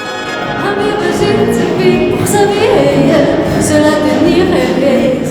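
Music with singing voices, in a choral style: long held sung notes.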